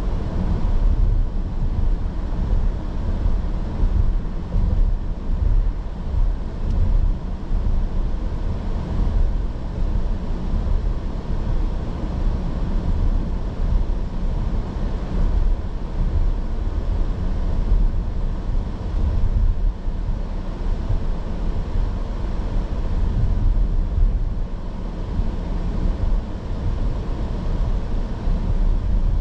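2024 Porsche Cayenne being driven: a steady low rumble of road and engine noise with some wind, even throughout with no revving or sudden events.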